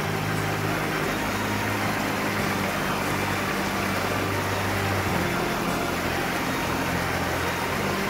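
Steady rushing water of a mountain stream, an even noise with a low hum under it that shifts about five seconds in.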